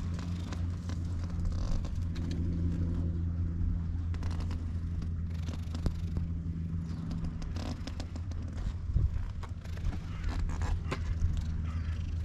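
A hand stroking a cat's fur close to the microphone, with scratchy rubbing sounds over a steady low hum.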